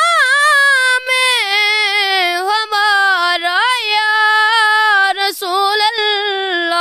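A high voice singing a long, drawn-out melismatic line of an Urdu naat (a devotional song praising the Prophet), with no instruments heard. The pitch wavers through ornaments and falls lower near the end.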